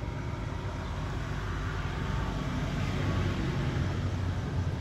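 Steady low rumbling background noise with no distinct event.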